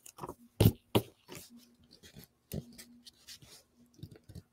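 Paper being handled and positioned on a scrapbook page: two sharp taps in the first second, then light rustling and sliding of the cardstock on the page.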